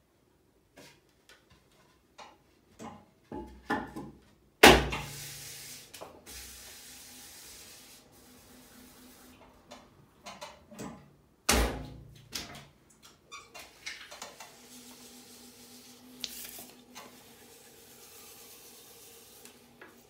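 Scattered knocks and clatter of a potter handling bats, boards and tools at the wheel, with two sharp loud bangs about five and twelve seconds in. A faint steady hum comes in about two-thirds of the way through.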